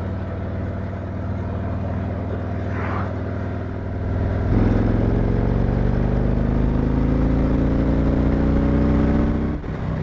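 Harley-Davidson Street Glide's V-twin engine cruising steadily, then opened up about four and a half seconds in, its note rising slowly as the bike accelerates. It dips briefly near the end, as at a throttle roll-off or gear change.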